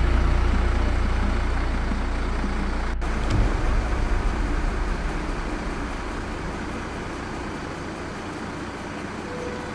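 Steady outdoor vehicle noise, like engines running in the street, under a deep low rumble that dies away over the first few seconds.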